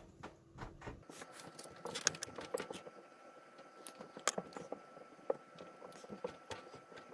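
Faint small clicks and taps of an RGB LED's wire leads and a pair of tweezers against a printed circuit board as the leads are worked into their holes; the sharpest clicks come about two and four seconds in. A faint steady high tone runs from about a second in.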